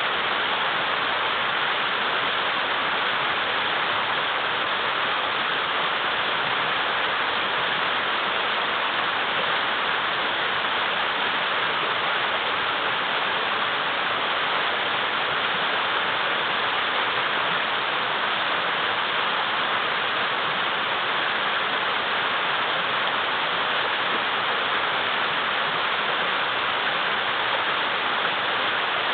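River water rushing over and around large boulders, a steady, unbroken rush.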